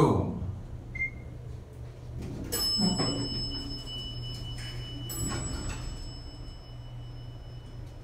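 Mechanical bell chime of a 1984 Dover Traditional elevator struck twice, about two and a half seconds in and again about two and a half seconds later, each strike ringing on with a steady high tone, as the car stands at the floor with its doors open. A steady low hum runs underneath.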